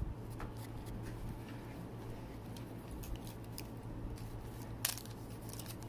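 Faint handling noises of trading cards and their packaging: scattered light clicks and rustles, one sharper click about five seconds in, over a steady low hum.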